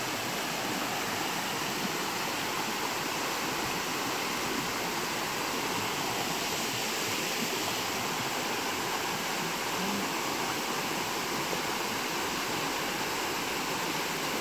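Shallow rocky stream rushing over stones: a steady, even wash of running water.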